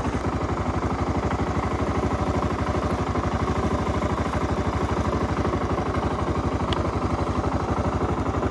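An engine idling with a steady, even chugging beat.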